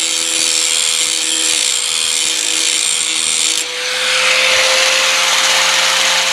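Power grinder running and grinding the steel of a Bush Hog rotary cutter blade to sharpen it, a steady whine under a harsh hiss. A little over halfway through, the grinding sound changes to a broader, rougher hiss.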